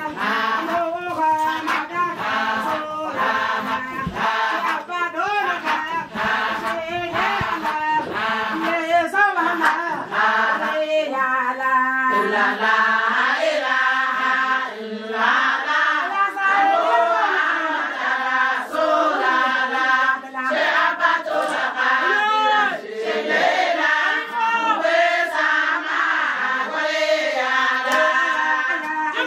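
A group of women singing and chanting together in unison, a repetitive group song that carries on without a break.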